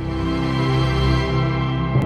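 Background music: slow held chords.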